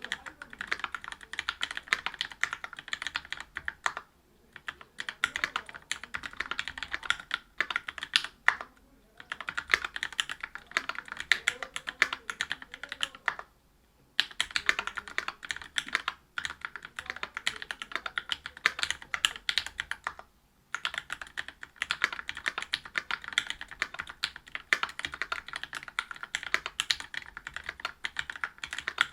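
Fast typing on a Whale 75 mechanical keyboard with stock Gateron Milky Red Pro 45 g linear switches in a brass plate and GMK keycaps. The keystrokes run in rapid clicking runs, broken by a few brief pauses.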